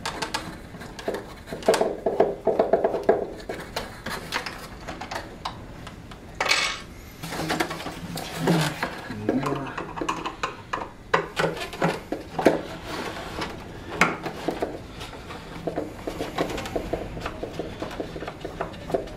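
Small metal lock parts and plastic packaging pieces clinking, clicking and rattling as they are handled and pulled apart, with a brief rustle partway through.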